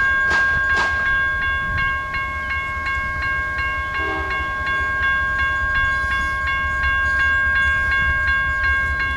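Railroad grade crossing bell ringing: a rapid, even stroke about three times a second over a steady ringing tone, the warning that the crossing is activated.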